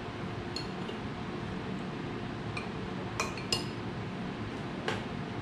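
Metal utensils clinking against a ceramic pot: about four separate light clinks, some ringing briefly, over a steady low hum.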